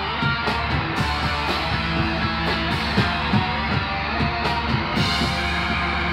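Live instrumental rock band playing: electric guitar and bass over a steadily struck drum kit, with no singing. The sound brightens about five seconds in.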